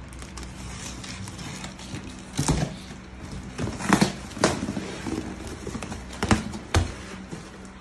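A cardboard shipping box being slit along its taped seam and pulled open by hand: rustling and scraping of cardboard and packing tape, with about five sharp knocks as the flaps are wrenched apart and the box is handled.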